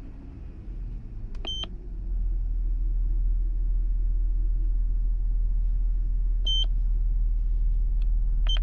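Steady low rumble of the Honda Odyssey's V6 engine idling, growing louder about two seconds in. Short high electronic beeps from a handheld OBD scan tool come about one and a half seconds in, again about six and a half seconds in, and once more near the end, as menus are stepped through.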